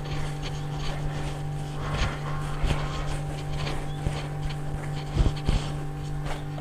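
Bread dough being kneaded by hand on a worktop: irregular soft thumps and handling noises, a couple of firmer knocks a little after five seconds in, over a steady low electrical hum.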